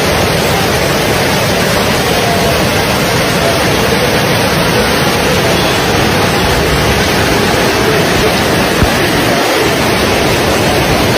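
Fast-moving floodwater rushing, a loud steady wash of noise with no breaks.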